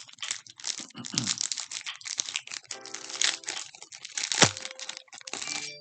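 Foil Pokémon TCG booster pack wrapper being torn open and crinkled by hand, with one sharp crack of the foil about four and a half seconds in.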